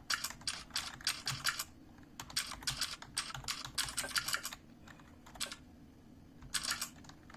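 Typing with simulated mechanical-keyboard switch clicks from Mechvibes software, which plays a click for each keypress on an ordinary Dell keyboard. The keystrokes come in quick runs, with a pause of about two seconds broken by a single click in the middle.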